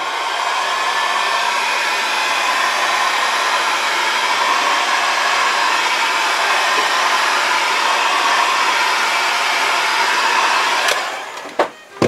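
Electric heat gun blowing steadily with a low motor hum as it shrinks heat-shrink tubing over a soldered wire splice, then switched off about a second before the end.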